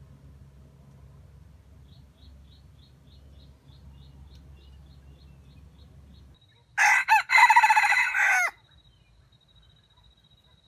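A red junglefowl rooster crows once, loud, about seven seconds in. The crow lasts under two seconds and is broken into a few short segments.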